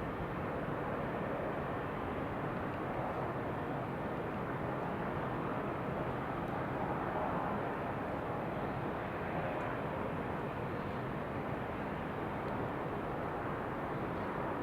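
Steady rushing noise of wind blended with white noise: an even hiss and rumble with no distinct events.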